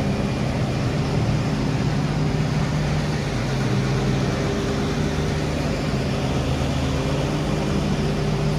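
A vehicle engine running steadily: an even, low hum with no breaks.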